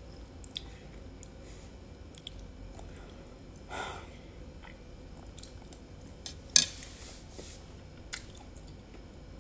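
A person chewing mouthfuls of chunky mushroom soup close to the microphone, with small clicks of a spoon against the bowl; the sharpest click comes about six and a half seconds in and another near eight seconds.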